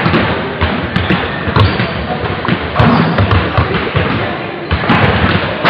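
Basketballs bouncing on a hardwood gym floor, a scatter of thuds at irregular intervals over a steady background of voices in the hall.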